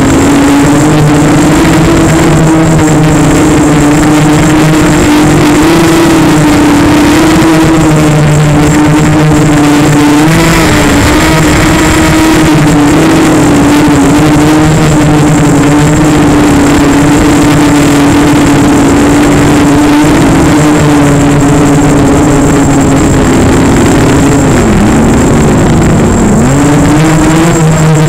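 Electric motors and propellers of a radio-controlled FPV aircraft, recorded by its onboard camera: a loud, steady droning whine that dips in pitch about 25 seconds in, then climbs back as the throttle is opened again.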